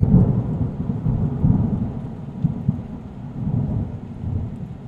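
Thunder rumbling in long, deep rolls, loudest right at the start and swelling again a couple of times, over a faint rain-like hiss: a thunderstorm sound effect under an intro title.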